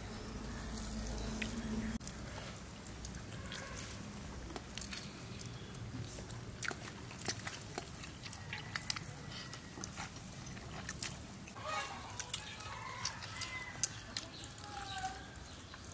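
People eating rice and curry by hand from steel plates: scattered small clicks and scrapes of fingers and food on the metal plates. Near the end come a few short animal calls.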